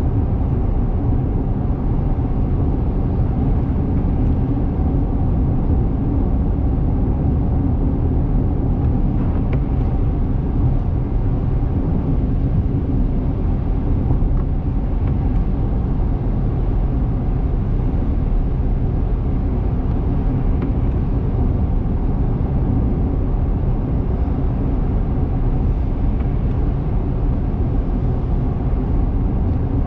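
Steady road noise of a car driving on the interstate at highway speed: an even, low engine and tyre rumble.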